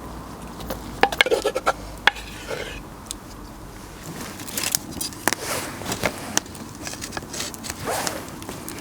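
A spoon stirring and scraping onions and ginger-garlic paste in a clay cooking pot, with irregular light knocks and clinks against the pot.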